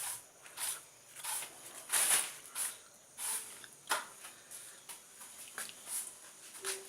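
Firewood burning in an outdoor fireplace, crackling with irregular sharp pops, about two a second.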